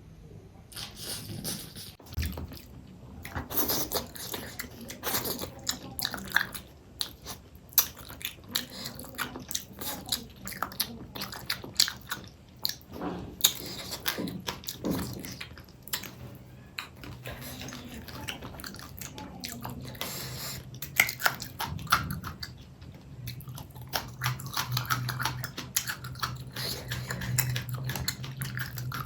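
Close-miked chewing and mouth sounds of someone eating fish curry with rice: a constant run of sharp, wet, irregular clicks and smacks. A low steady hum comes in during the last few seconds.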